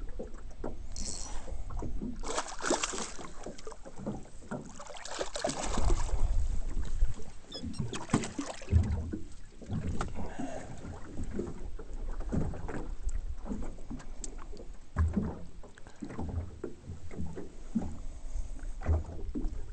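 Lake water splashing and lapping at the side of a small boat as a walleye is brought in and lifted out by hand, with irregular low knocks and thumps.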